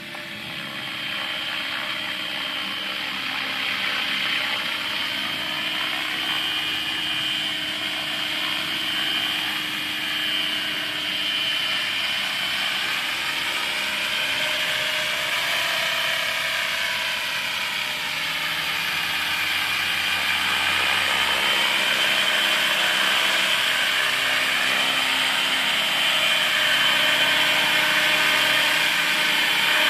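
MSH Protos 500 electric RC helicopter in flight: the steady high whine of its motor and gears with the rush of the spinning rotor blades, the pitch bands slowly bending. It grows louder as the helicopter comes down to hover and land close by.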